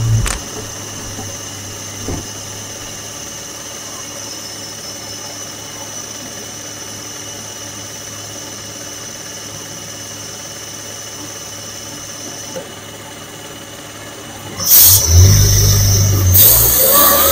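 The supercharged engine of a 2016 Audi S4 with a stage 1 tune and aftermarket intake, heard from under the engine. It drops off to a steady, much quieter run with a faint steady high whine. About fifteen seconds in it suddenly gets loud, then revs up with its pitch climbing.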